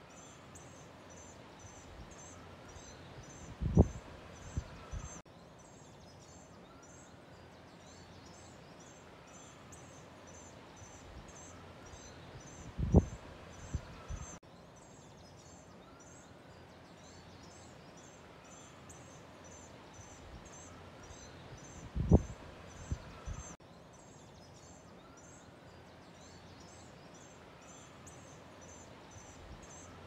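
Outdoor ambience looped about every nine seconds: steady high, rhythmic chirping over background noise. Each pass has one loud, low thump followed by two smaller knocks, and the thump is the loudest sound.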